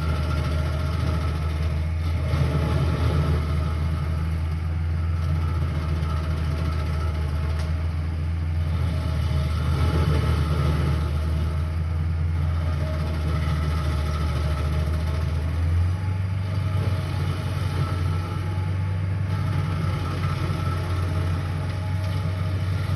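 An engine running steadily with a low hum, its tone shifting slightly about two-thirds of the way through.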